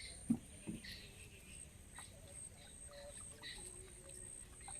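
Faint ambience with scattered short bird-like chirps and a thin steady high hiss, broken near the start by two soft thumps a little under half a second apart.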